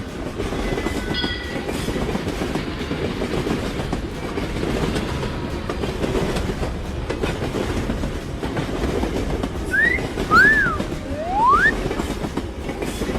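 Train running along the track, a steady rumble with wheel clatter on the rails. About ten seconds in come three short sliding tones, two rising and one rising then falling, the loudest sounds in the stretch.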